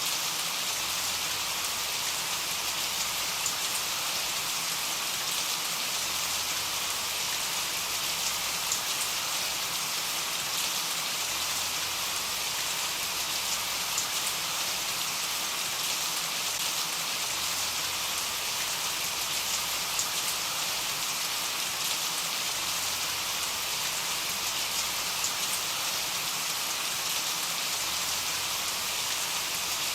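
Steady rain falling, an even, unbroken hiss with no change in strength.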